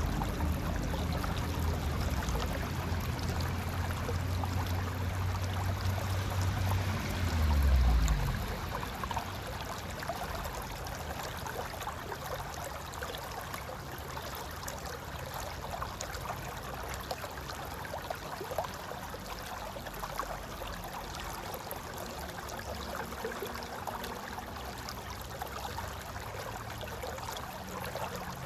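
Mountain river flowing and gurgling over rocks, a steady rush of water. For the first eight seconds a low hum sounds beneath it; it drops in pitch, swells briefly and stops.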